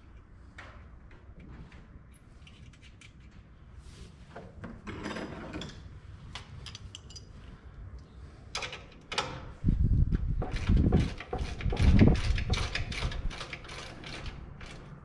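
Clicks, taps and knocks of hand work with a hand tool on metal parts at the front of a tractor. From about ten seconds in comes a louder run of rapid clicking with heavy low thumps.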